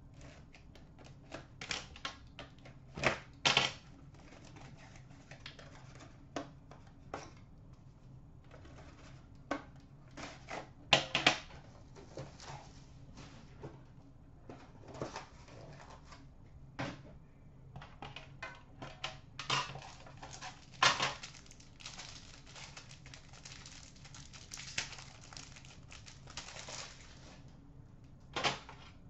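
Hands opening a metal trading-card tin and its packaging: scattered clicks, taps and short scrapes of metal, plastic and cardboard, with a denser run of scraping and rustling past the middle.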